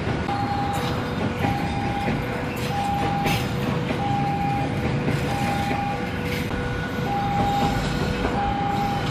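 A train running on the rails with a steady rumble and some clicking. Over it, an electronic warning alarm of the kind used at level crossings sounds a two-tone high-low chime that repeats about every 1.3 seconds.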